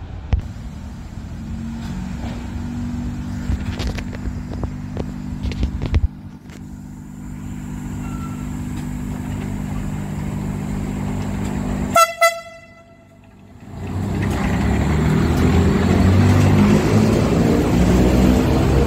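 FS E.636 electric locomotive running with a steady low hum as it pulls out, then two short toots of its horn about twelve seconds in. After a brief gap, a loud steady rumble of the train rolling past close by.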